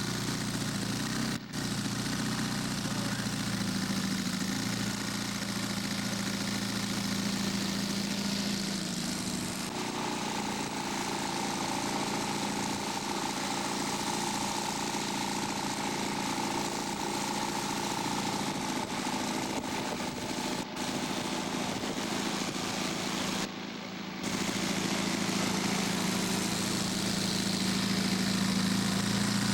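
Model airplane engine running steadily, its pitch shifting slightly about ten seconds in, with a couple of brief dropouts.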